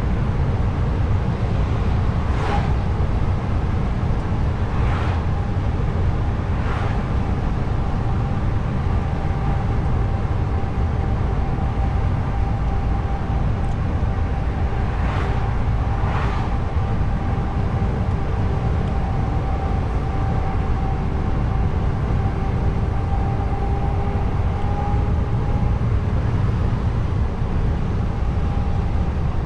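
Truck engine and road noise while driving: a steady low rumble with a faint steady whine over it, broken by a few brief knocks or rattles.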